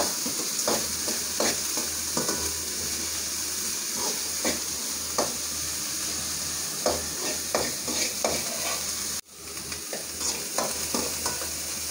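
Chopped onions sizzling in hot oil in a metal kadai, with a spoon scraping across the pan as they are stirred, a stroke every second or so. The sound cuts out for an instant about nine seconds in, then the sizzling and stirring go on.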